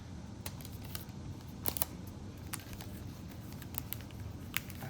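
A few scattered light clicks and taps from handling a metal Zippo lighter, the sharpest a close double click about a second and a half in, over a low steady room hum.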